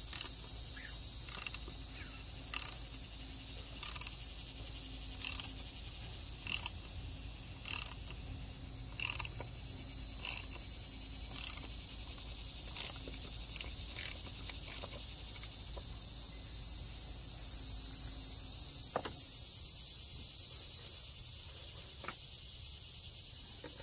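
Ratchet driving a cap-type oil filter wrench, clicking about once every second and a quarter as it spins the plastic oil filter housing cover loose on a 2013 Land Rover LR4's V8. The clicks stop after about fifteen seconds, and insects buzz steadily behind them.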